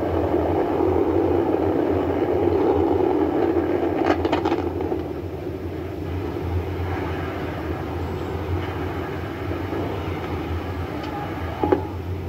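Antares rocket failing just after liftoff and exploding on the launch pad: a steady deep roar with a burst of sharp crackles about four seconds in. After that the roar eases a little, and there is one more sharp crack near the end.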